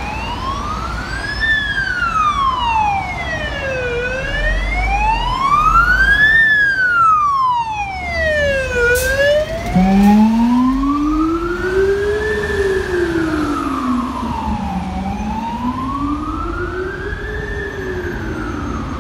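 Fire engine's wail siren rising and falling in slow sweeps, about one full cycle every five seconds, loudest as the pumper passes close by about halfway through, with the truck's engine rumble underneath.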